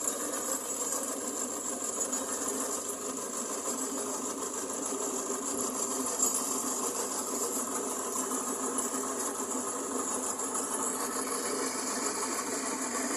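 An engine-driven machine running steadily at a constant speed, with a light rattle.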